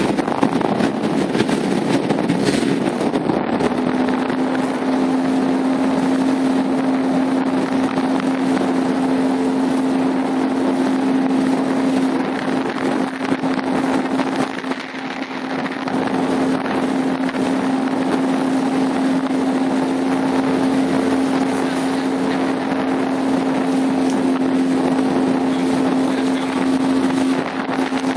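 Motorboat engine running steadily at one pitch, which drops slightly about three and a half seconds in and then holds. Wind buffets the microphone and water rushes past the hull.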